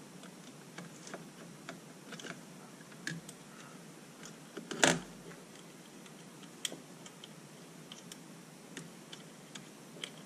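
Small, scattered clicks and taps of plastic wire connectors being handled and plugged onto a circuit board, with one louder knock about five seconds in.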